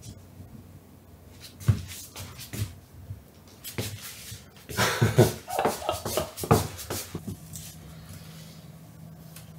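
Domestic cat making short calls: one soft call about two seconds in and a quick run of calls between five and seven seconds in. Near the end a steady low hum of recording noise sets in.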